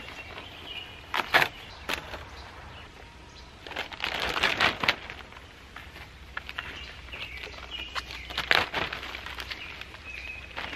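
Clear plastic wrap on a stack of lumber rustling and crinkling as it is pulled back, in several loud bursts about a second in, around four to five seconds in, and again later. Birds chirp faintly in between.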